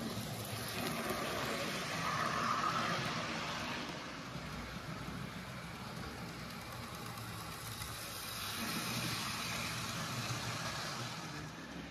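Model train running on a layout's track: a steady rolling rumble of the locomotive's motor and wheels on the rails, swelling about two seconds in as it passes close.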